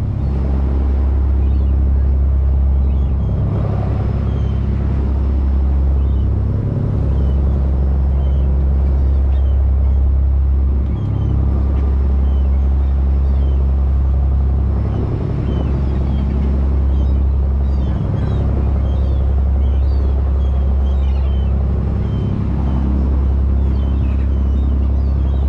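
Fishing boat's engine running steadily while underway, a loud low hum that dips briefly every three to four seconds.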